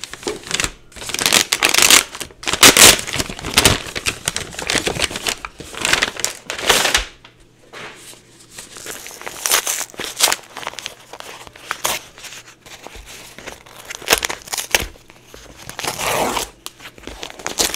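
Gift packaging being unwrapped by hand: irregular bursts of crinkling and tearing. It is loudest in the first few seconds, drops back about halfway through, and picks up again with a few more bursts near the end.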